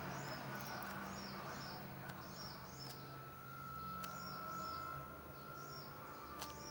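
A small bird chirping over and over in a quick, regular series of short high chirps, over a low steady hum, with a few faint clicks.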